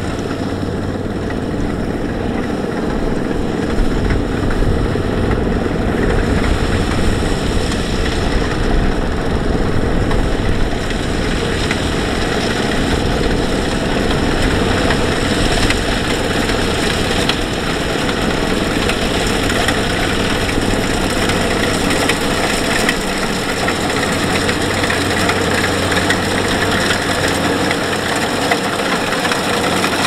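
Kubota DC-70 combine harvester's diesel engine and machinery running steadily while it cuts and threshes rice, a continuous low drone with more high-pitched noise in the second half.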